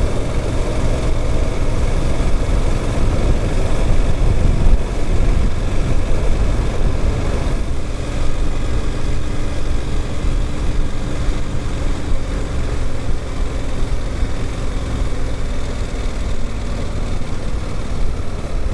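Suzuki GSX-8S's 776 cc parallel-twin engine running while the motorcycle is ridden on the road, with heavy wind rumble on the microphone. About 7 to 8 seconds in the wind eases and a steadier engine tone comes through; the engine is in its running-in period.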